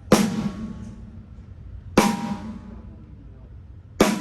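Snare drum struck on its own three times, about two seconds apart, each hit ringing out with a low tone as it dies away: the drum being checked alone during a sound check.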